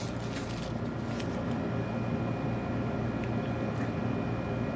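Steady background hum and hiss, with a few faint small clicks from an object being handled.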